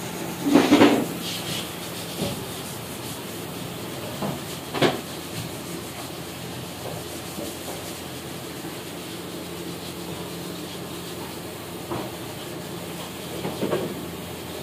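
Steady factory machinery hum with a handful of short scrapes and knocks, the loudest about half a second in.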